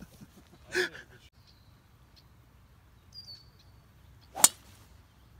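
A single sharp crack of a driver's clubhead striking a teed golf ball, near the end. A few faint bird chirps come shortly before it.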